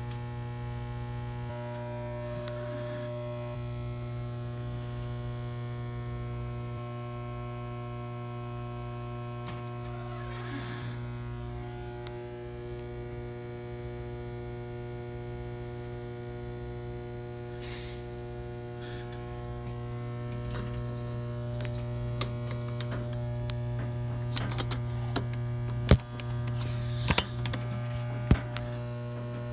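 Steady low electrical hum throughout, with short hissing bursts and a few sharp clicks in the second half.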